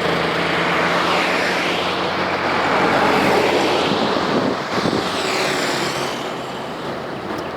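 Road traffic: vehicles passing one after another with steady tyre and engine noise, swelling to its loudest about three seconds in and easing off near the end.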